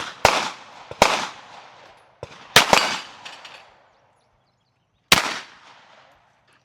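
Glock pistol shots fired one at a time at irregular intervals, about six in all, each followed by a short fading echo.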